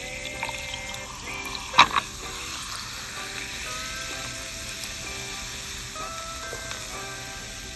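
Food sizzling over a fire, a steady crackling hiss, under background music. Two sharp clicks come close together about two seconds in.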